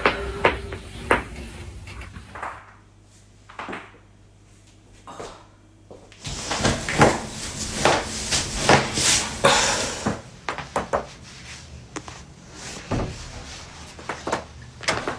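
A person's back cracking under hand adjustments: a series of sharp pops and clicks, scattered singly at first, then a dense run of them about six seconds in lasting several seconds, then a few more single cracks near the end.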